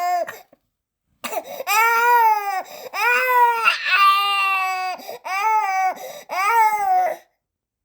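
Newborn baby crying: after a short pause, a string of four wails, each one to two seconds long, with brief gasps between them, stopping shortly before the end.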